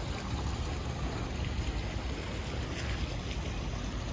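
Steady rain falling on a wet city street: a continuous hiss with a low rumble underneath.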